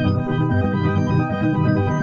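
Electronic meditation music: held keyboard tones over a low part of short, changing notes.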